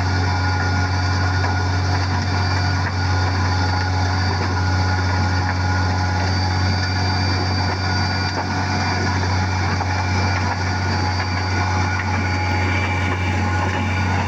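Heavy diesel road-construction machinery running steadily, a constant low engine drone with several steady high whines over it.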